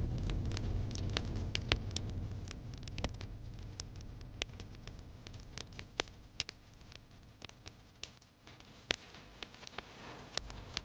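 Wood fire crackling: irregular sharp pops and snaps, some louder than others. A low rumble is strong at the start and fades away over the first few seconds.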